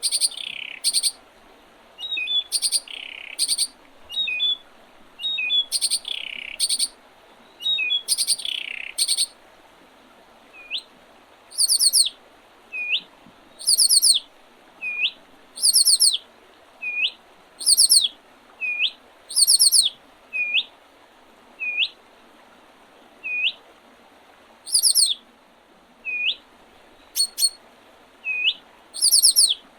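Songbirds calling and singing in spring. For the first several seconds there are short high notes with quick downward sweeps. After that, one bird repeats a short hooked note about once a second, and very high, rapid trilled bursts come in between.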